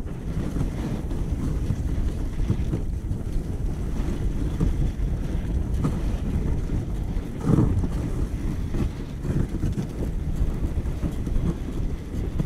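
Wind buffeting the phone's microphone over the steady rumble of a husky-drawn dog sled running over snow, with one brief louder burst of noise a little past halfway.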